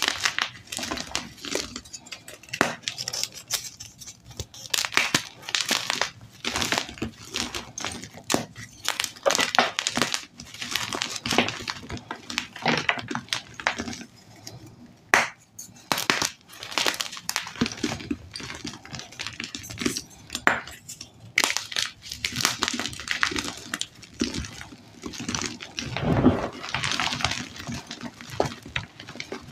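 Blocks of dyed gym chalk crushed and crumbled by hand into a pile of loose chalk chunks: a continuous run of irregular dry crunches and crackles, with a few heavier, duller crunches near the end.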